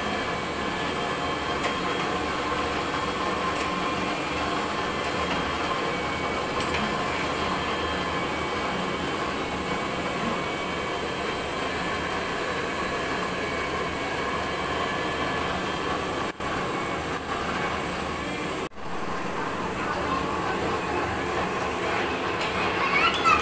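Steady roar of the burner under a large aluminium pot of mutton being fried, with the meat sizzling in it. The noise cuts out briefly twice, around two-thirds of the way through.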